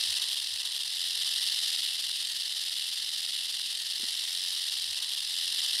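Rattlesnake rattling its tail: a steady, high-pitched dry buzz.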